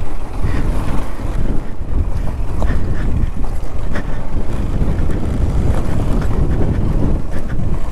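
Wind rumbling on the microphone of a slowly moving motorcycle, with the KTM 390 Adventure's single-cylinder engine running underneath. The sound is a steady, deep rumble.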